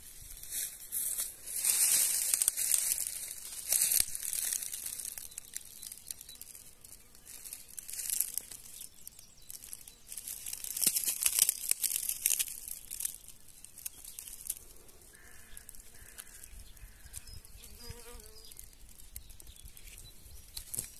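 Dry leaves and twigs rustling and crackling in irregular bursts, loudest in the first few seconds and again about halfway through.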